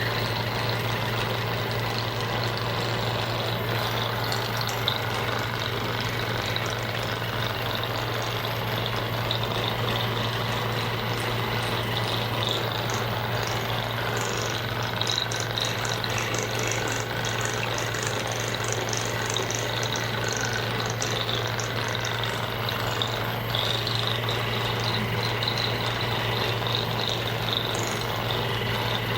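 Small electric massager running with a steady motor hum, used to loosen the muscles, with a shifting hiss over the hum from about halfway through.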